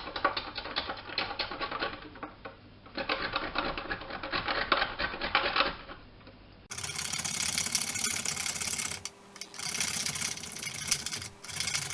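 Dark chocolate being grated by hand on a metal cheese grater: rapid, continuous scraping strokes, stopping briefly about two seconds in and again later on.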